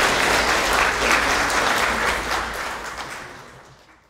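Audience applauding, a dense clatter of many hands clapping, dying away steadily in the last second and a half.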